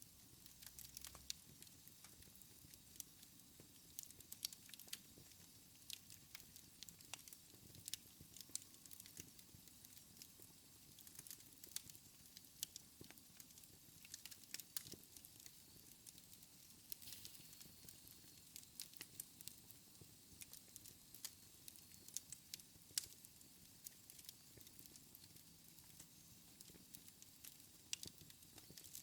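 Wood fire crackling in a fireplace: irregular snaps and pops over a soft, steady hiss, with a louder pop about 23 seconds in.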